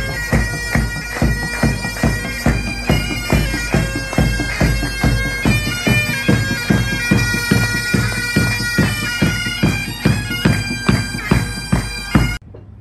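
Military pipe band of Highland bagpipes and drums playing a march: steady drones and a chanter melody over a bass drum beating about twice a second. The music cuts off suddenly near the end.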